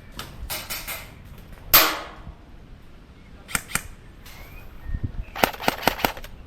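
Airsoft guns firing: a few sharp shots near the start, a loud single shot about two seconds in, a pair of shots near the middle, and a quick burst of several shots near the end.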